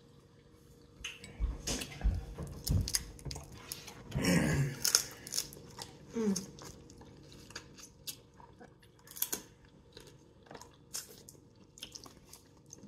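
Close-up eating of boiled crab: shells cracking and crunching, and meat being chewed and sucked from the legs, in irregular short snaps and clicks, with a longer noisy burst about four seconds in.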